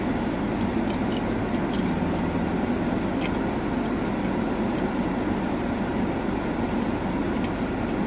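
Steady low hum and rumble inside a car with the engine idling, with a few faint small clicks.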